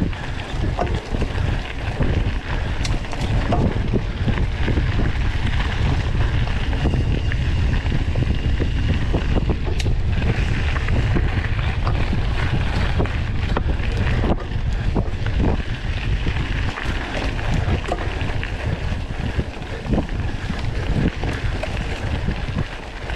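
Wind buffeting the microphone, a heavy, fluctuating low rumble with scattered short knocks and rattles.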